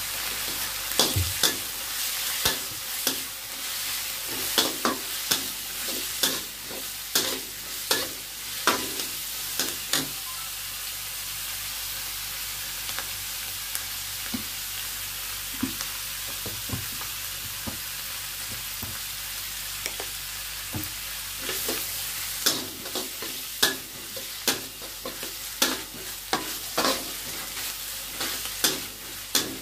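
Chopped vegetables sizzling in a nonstick wok, with a spatula scraping and knocking against the pan as they are stir-fried. The stirring strokes thin out for about ten seconds in the middle, with only the steady sizzle going on, then pick up again.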